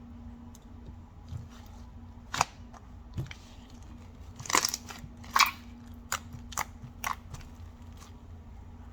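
Irregular sharp clicks and short crinkling handling noises, about a dozen in all, the loudest cluster near the middle, over a faint steady hum.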